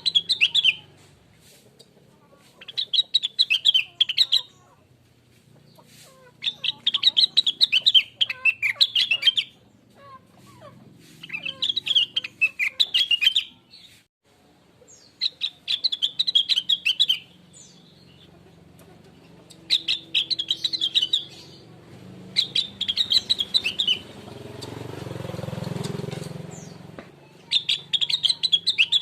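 Rengganis (cucak wilis) songbird singing a natural lure song: rapid high chirping phrases of about two seconds each, repeated after short pauses. Near the end, a low rumble swells and fades under the song.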